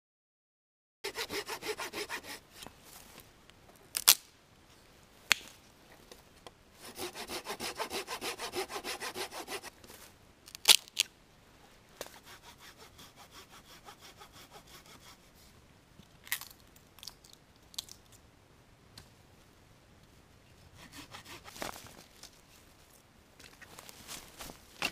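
Hand saw cutting dead wood in quick back-and-forth strokes, in several spells with pauses between. About four sharp single cracks of wood come in between, the loudest about eleven seconds in.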